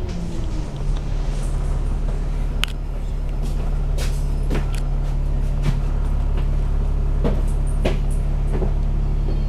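Diesel engine of an Alexander Dennis Enviro500 double-decker bus idling steadily while stopped at a light, heard inside the upper deck. Sharp clicks and rattles from the bus body come every second or so.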